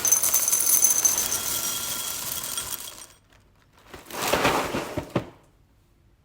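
Dry cereal poured into a bowl: a rattling pour for about three seconds that tapers off, then a second, shorter pour about four seconds in that ends with a sharp click.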